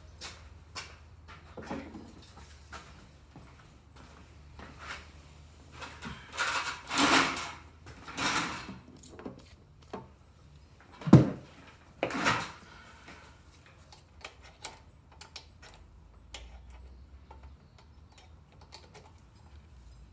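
Hand tools clicking, scraping and knocking on metal while a stuck exhaust valve is forced out of a Honda GCV160 cylinder head, with a few louder scraping stretches in the middle and one sharp knock about eleven seconds in.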